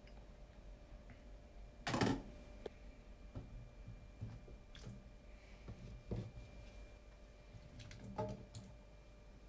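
Kitchen handling sounds: a few separate knocks and clicks of utensils or containers being set down, the loudest about two seconds in, over a faint steady hum.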